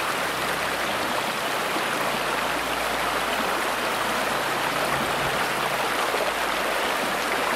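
Shallow, rocky stream rushing steadily over stones.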